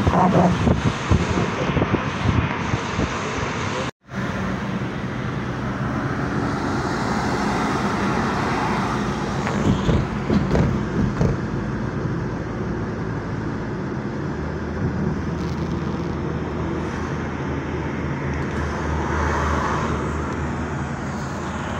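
Road noise of a car moving along a highway, heard from inside: a steady mix of tyre and engine noise, gustier in the first few seconds. There is a brief dropout to silence about four seconds in, and later a low drone grows beneath the noise.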